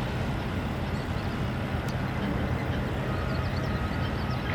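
Steady rumble of engines and machinery with a low hum. About three seconds in, a faint distant horn sounds for about a second.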